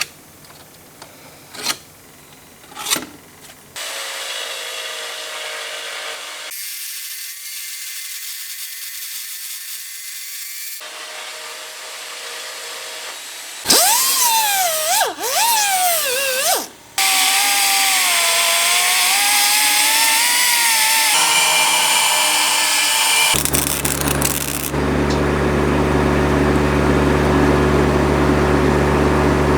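Power tools working on metal, heard in a string of short clips that cut abruptly from one to the next. A whine rises and falls in pitch partway through, and a steady low hum joins near the end.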